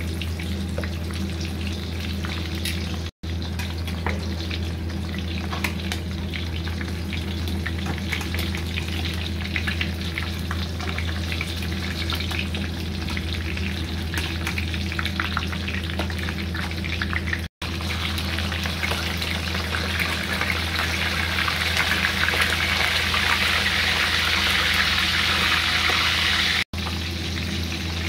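Whole galunggong (round scad) frying in a stainless steel pan, a steady dense sizzle and crackle that grows louder about two-thirds of the way through, over a steady low hum. The sound cuts out for an instant three times.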